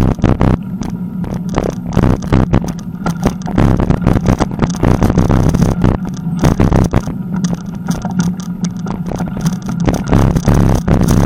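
Bicycle rolling over a bumpy dirt path, its frame and the mounted camera rattling with a quick, irregular stream of knocks over a steady low rumble.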